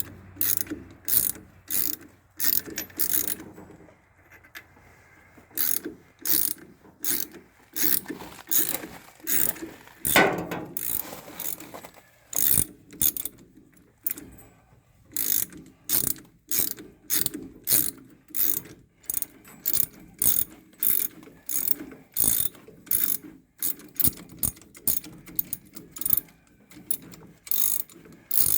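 Ratchet wrench clicking in steady, repeated strokes as it turns a gear puller's forcing screw, drawing the drive clutch pulley off a Frontier OS27 sawmill's shaft. The clicking pauses briefly twice, and there is one louder clunk about ten seconds in.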